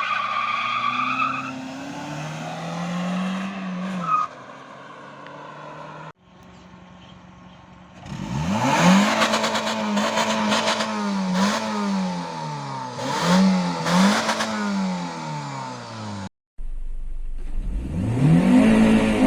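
Stock 2007 Toyota Corolla Altis 1.8's four-cylinder engine being revved for an engine and exhaust sound check: the revs climb, are held high, and dip and rise again several times. After a brief break near the end, they climb once more.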